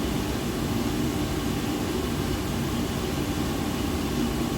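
Forced-draught gas boiler burner running steadily at low fire, a constant hum of fan and flame. The combustion reading shows it short of air at low fire, the cause of its sooting.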